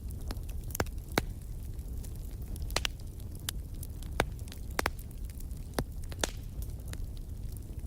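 Wood fire burning in a fireplace: a steady low rumble of the flames with sharp, irregular crackles and pops, about a dozen of them.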